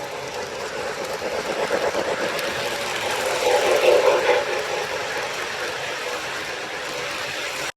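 O gauge model train running on the track, a steady rolling rumble of wheels and motor that swells louder for about a second a little past the middle, as if passing close, then settles back.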